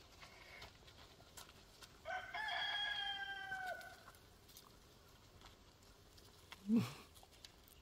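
A rooster crows once, a single held call of nearly two seconds that starts about two seconds in and drops in pitch at its end. Near the end comes a brief, louder low-pitched sound.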